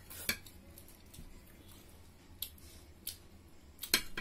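A metal spoon clicking against a glass serving dish while scooping curry: a few sharp, separate clicks, the loudest near the end.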